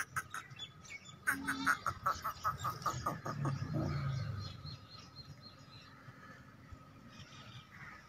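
Animal calls: a quick run of short chirping notes from about a second in, then a lower, drawn-out call around three and a half seconds in.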